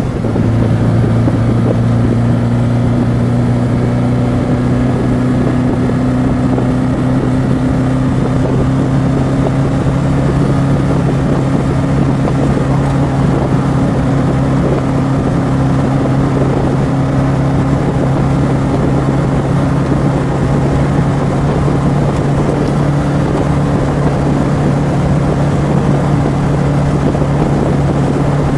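The 1965 Fiat Abarth 1000 OT Spider's Abarth-tuned inline four-cylinder engine pulling on the road. It drops in pitch at a gear change right at the start, then climbs slowly and steadily in pitch as the car gathers speed.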